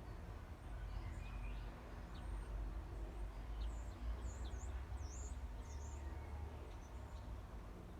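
Small birds chirping: a run of short, high, swooping chirps, thickest through the middle, over a steady low rumble.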